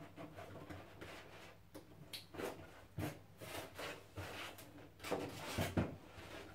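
Light handling noises from a homemade board photo booth: a scatter of small knocks, taps and rubbing as it is moved and felt behind, a little louder about five seconds in.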